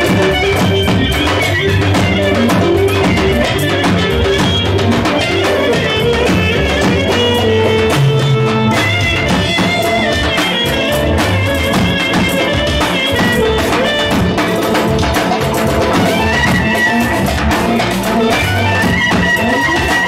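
Music: melodic instruments over a steady drum beat.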